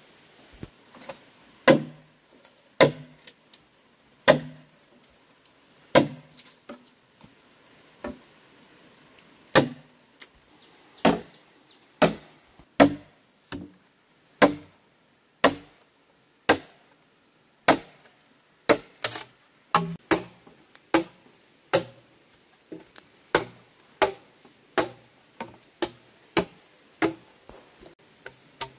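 Machete blade chopping into a green bamboo pole: sharp, separate strokes, about one a second at first and quickening to about two a second in the second half.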